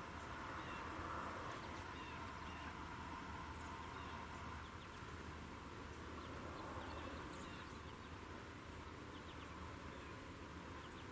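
Quiet woodland ambience: a steady faint hiss with scattered short, high chirps from small birds.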